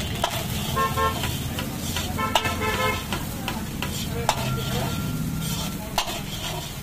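A metal ladle scrapes and clanks against a large iron wok as egg fried rice is stirred and tossed over the heat, with the rice frying underneath. A vehicle horn toots in short pulses about a second in, and again at about two and a half to three seconds in.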